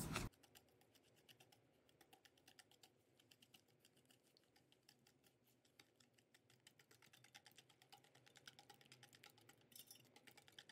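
Faint, rapid clicking of a wire balloon whisk against a stainless steel bowl as egg whites are stirred with sugar. The ticks are sparse at first and get busier and a little louder from about the middle on.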